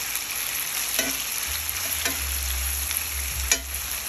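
Sliced beef smoked sausage frying in oil in a cast-iron skillet, a steady sizzle. Three sharp clicks are heard over it, the loudest about three and a half seconds in.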